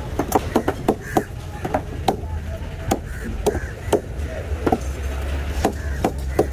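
A long curved knife chopping through a trevally onto a chopping block: a run of sharp, irregular chops, about two a second, some coming in quick clusters.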